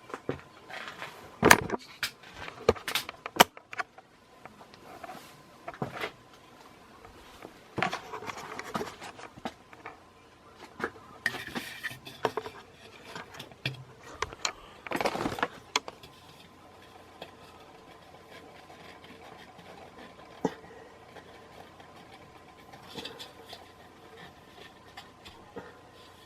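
Scattered sharp clicks, knocks and light clattering during the first sixteen seconds, over a faint steady hum with a thin steady tone, plausibly the 1986 Relite Airmaster Mark 7 ceiling fan running; after that only the hum remains.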